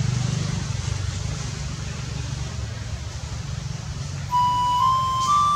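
A low, steady rumble over a faint outdoor hiss. About four seconds in, background music comes in as a melody of single held notes stepping upward, louder than the rumble.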